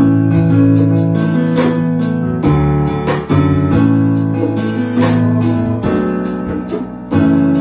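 Live gospel band playing: keyboard chords over a bass line, with drum kit and hand drums keeping a steady beat.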